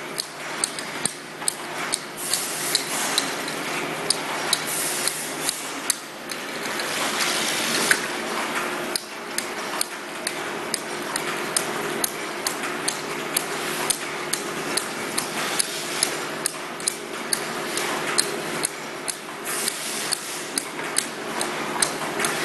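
Flat-surface sticker labeling machine running: a steady motor and conveyor hum with sharp mechanical clicks about twice a second as items are fed through and labeled.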